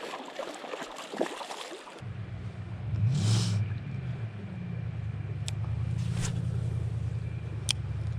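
Running water, then about two seconds in a low engine hum starts abruptly. It rises in pitch once a second later, then runs steadily, with a few sharp clicks over it.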